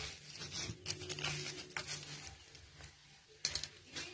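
Coconut-shell scoop scraping through loose potting soil on newspaper, the paper crinkling and soil pattering in short, irregular bursts.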